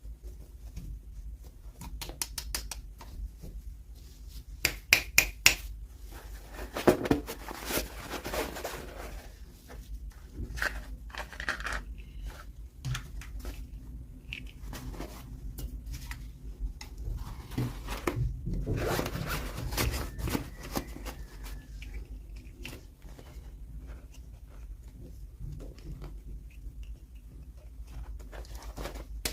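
Toy packaging being unboxed by hand: rustling, tearing and scraping, with sharp clicks of small plastic pieces. A run of loud clicks comes about five seconds in.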